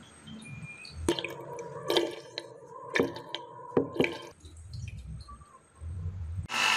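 Salt poured from a plastic cup into a glass tank of water, with about five sharp drip-like plinks and clinks that ring briefly off the glass. A loud motor cuts in at the very end.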